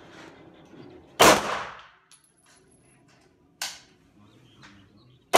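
Two pistol shots about four seconds apart, each a sharp, loud crack with a short ringing tail. A fainter sharp crack falls between them.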